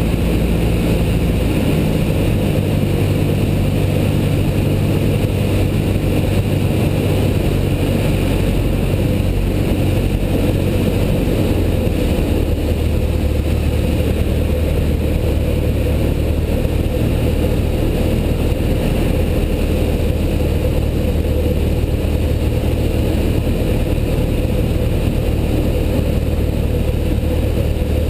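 Single-engine light aircraft's piston engine and propeller droning steadily, heard inside the cockpit. The engine note steps down twice, slightly about a second in and more clearly about eleven seconds in, as power is pulled back for the descent towards the runway.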